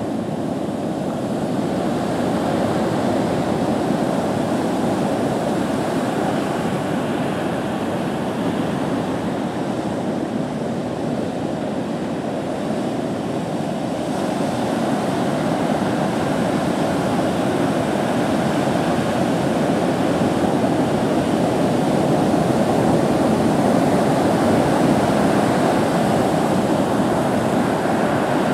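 Heavy ocean surf from hurricane swell breaking and washing onto the beach, a steady rushing that swells a little in the second half.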